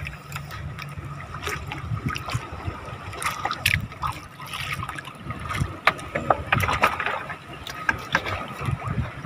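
Scattered light clicks and knocks of fishing gear being handled aboard a small boat while hooks are baited, over a low wash of water.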